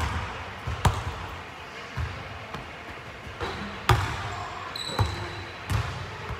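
Basketball bouncing on a hardwood gym floor during bounce passes: a handful of separate sharp thuds, the loudest about four seconds in, echoing in a large gymnasium.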